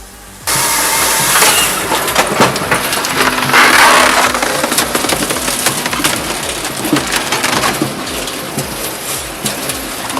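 Palax KS43S firewood processor splitting logs: wood cracking, crushing and splintering over the low, even beat of the machine running. It cuts in suddenly about half a second in.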